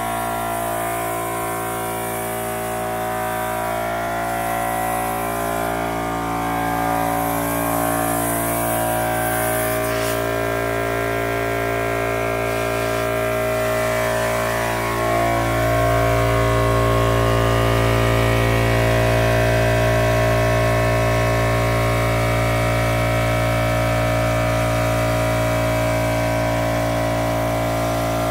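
Pest-control compressor sprayer unit running with a steady mechanical hum. Spray hisses from the wand in short spells during the first ten seconds, and the low hum grows louder about halfway through.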